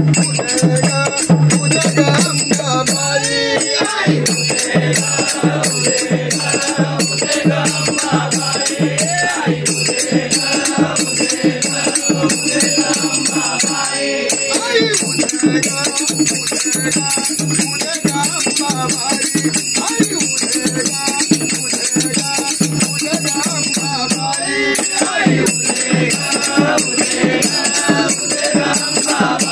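A group of men singing a bhajan together, kept in time by small brass hand cymbals (manjira) clashing on every beat with a steady metallic ring.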